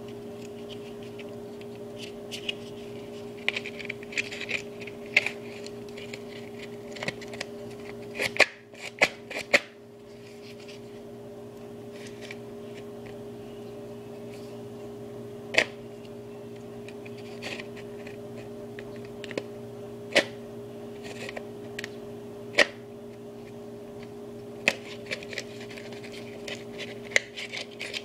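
Hands handling a cardboard replica pistol: scratchy rustling of the cardboard with scattered sharp taps and clicks, about half a dozen of them louder, over a steady hum.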